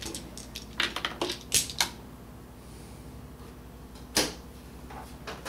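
Hard baby toys clacking and knocking as a baby handles them. There is a quick run of clacks in the first two seconds, one sharper knock about four seconds in, and a couple of lighter taps near the end.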